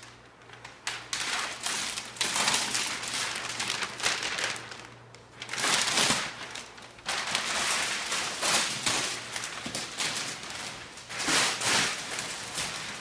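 Large sheets of wrapping paper being pulled and torn away by hand, crackling and rustling in repeated loud bursts.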